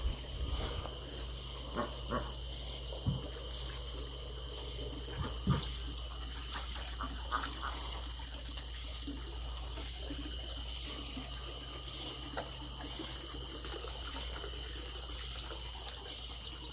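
Crickets trilling steadily over a low steady hum, with a few short thumps and rustles, the strongest about three and five and a half seconds in.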